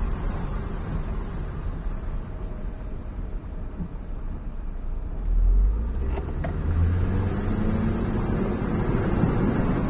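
Steady low rumble of a car's engine and tyres driving through standing water on a flooded road, heard from inside the cabin, with a hiss of water under the wheels.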